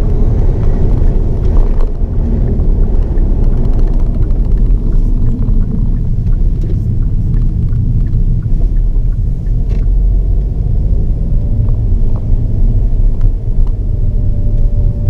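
Steady low rumble inside the cabin of a Hyundai Avante N on the move: engine and road noise, with a faint steady whine joining in over the second half.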